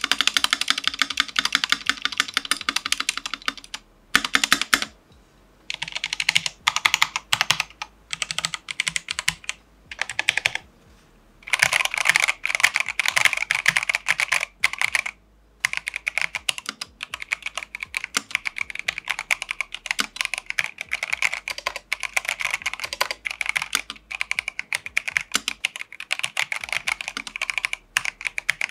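Typing on a 1st Player mechanical keyboard: fast runs of keystroke clacks, broken by a few short pauses in the first half, then continuous typing from a little past halfway.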